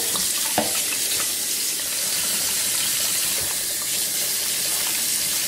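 Faucet water running steadily into a stainless steel sink, an even hiss of falling water.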